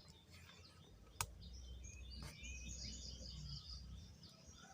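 Birds chirping faintly over a low rumble, with one sharp click a little over a second in.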